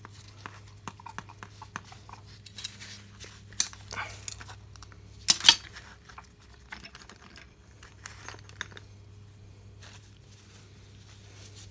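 Scattered metal clinks and knocks as power steering pump parts, a hose fitting, bolt and washers, and tools are handled and set down on a wooden workbench, with two louder knocks close together about five seconds in, over a faint steady hum.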